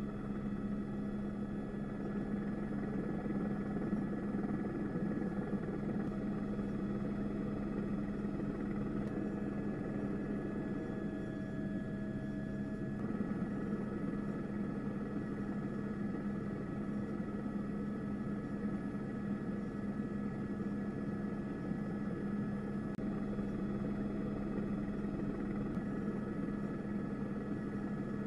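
Steady drone of an aircraft engine, a strong low hum with several higher steady tones that shift in pitch a few times.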